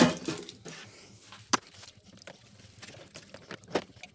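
A loud knock at the very start, then scattered light knocks and scrapes of a steel ruler stirring thinned primer in a plastic mixing cup.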